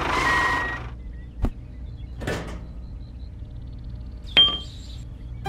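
A noisy whoosh fades out in the first second, followed by a couple of faint clicks. Near the end comes a sharp metallic clink with a brief high ring as a small metal spring and ring hitch is hooked onto a toy tractor.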